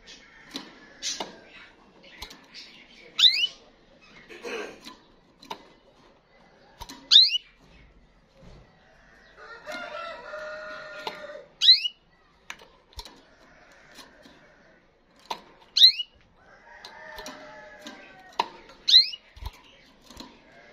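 A canary's sharp whistled call, a quick sweep in pitch, repeated five times about every four seconds, with a rooster crowing twice in the background and scattered light clicks.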